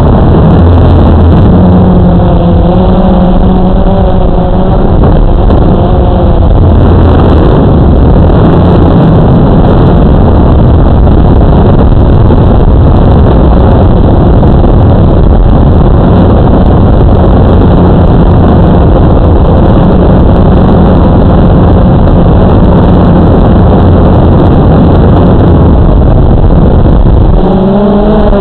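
Drone's electric motors and propellers buzzing loudly on its own onboard camera microphone: a steady rushing noise, with a wavering pitched hum that stands out from about two seconds in and again near the end.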